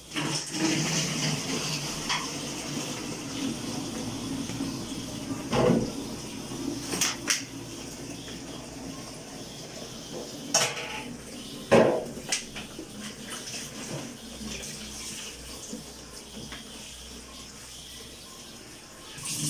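Kitchen tap running into a stainless steel sink as plastic water bottles are rinsed and filled, with a few sharp knocks of bottles and dishes against the sink, the loudest about twelve seconds in.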